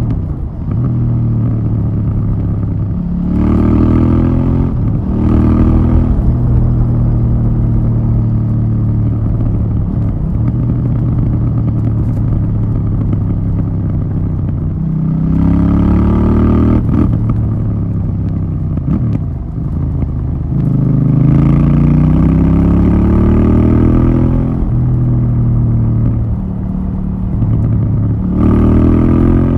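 KTM 790 Duke's parallel-twin engine through its stock exhaust, under way: steady cruising broken by several hard accelerations in which the engine note climbs and then drops back at each gear change, about three seconds in, in the middle, a longer pull past twenty seconds, and again near the end.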